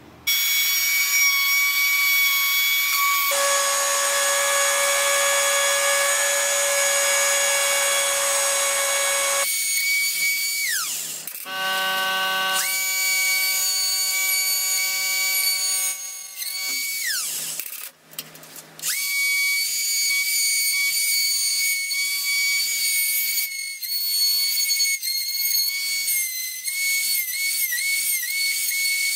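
Handheld rotary tool with a small bit cutting a slot into snakewood, a steady high whine. The whine winds down, falling in pitch, about ten seconds in, again around sixteen seconds and at the end. It wavers and dips in pitch near the end as the bit bites into the wood.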